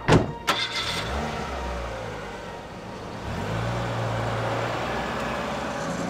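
A car door on a Mercedes-Benz sedan shuts with a sharp thump right at the start, with a second thump about half a second later. The car's engine then runs steadily.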